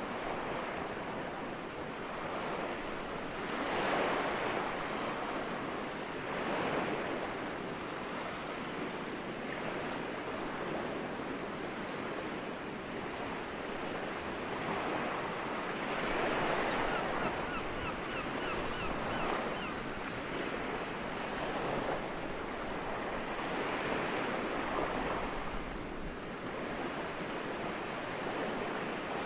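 Soft sea waves washing onto the shore, the surf swelling and easing in surges several seconds apart.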